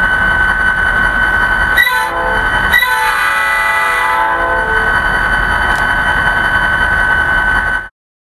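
The sound decoder of an HO scale SD40-2 model locomotive blowing its Nathan P5 air horn, a steady multi-note chord, over the diesel engine's idle. The horn breaks off and sounds again about two and three seconds in. Everything cuts off abruptly near the end.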